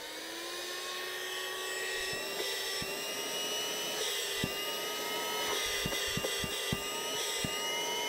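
Small cordless handheld vacuum cleaner running with a steady high motor whine, its pitch rising a little in the first second as the motor comes up to speed. A few light knocks from the body being handled.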